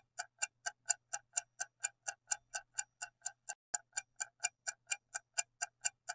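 Steady clock-like ticking of a quiz countdown timer sound effect, about four crisp ticks a second, marking the time left to answer.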